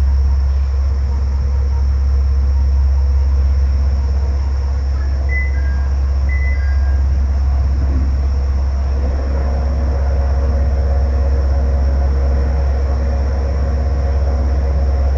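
Kanto Railway KiHa 2100-series diesel railcar idling at a standstill: a steady, deep engine rumble. Two brief high beeps sound about five and six and a half seconds in.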